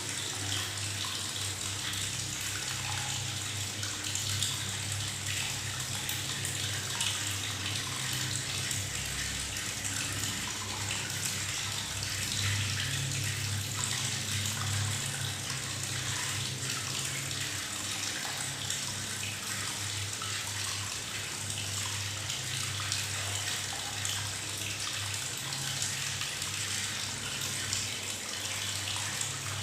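Tap water running steadily into a bathtub, splashing and gurgling with bubbles, with a low hum underneath.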